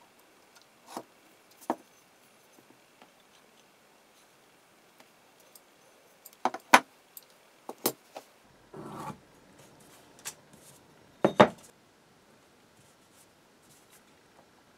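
Small metal marking-out tools (digital calipers, a steel rule and a scriber) being handled and set down, giving scattered light clicks and taps. Two louder clusters of knocks come about six and a half and eleven seconds in, with a short scrape about nine seconds in.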